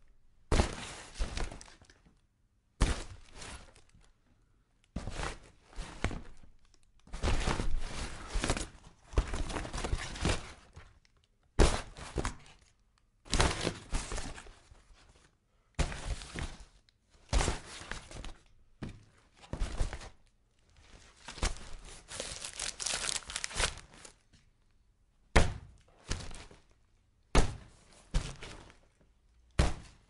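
Cardboard being struck repeatedly: dull thunks in separate bursts with short pauses between them. Some bursts are a single sharp hit, others a longer run of quick hits.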